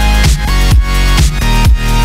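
Electronic dance music with a kick drum beating about twice a second under held synth tones.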